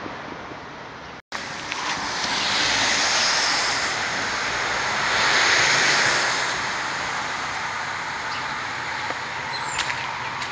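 Wind rushing, swelling and easing twice, cut off for a moment about a second in. A few faint clicks near the end.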